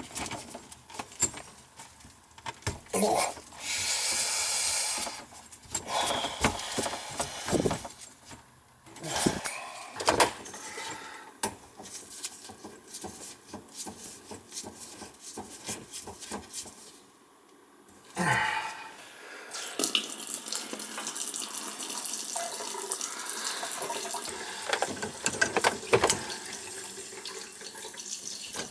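Water running from a disconnected faucet line through a small tube into a plastic jar under a kitchen sink, with a short spurt early on and a steady run of several seconds in the second half. Clinks and knocks of tools and fittings sound between them.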